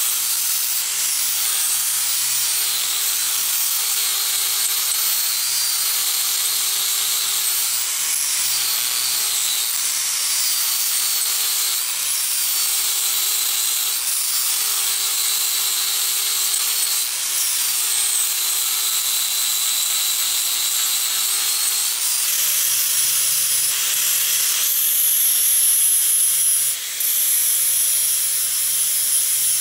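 Angle grinder with a flap disc running steadily, sanding down wooden knife-handle scales. The motor's whine dips in pitch every couple of seconds as the disc bears into the wood, and settles to a different pitch about two-thirds of the way through.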